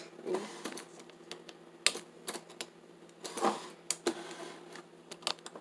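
Scattered light clicks and taps, about eight of them at irregular intervals, from a phone camera being handled and turned on its small tripod.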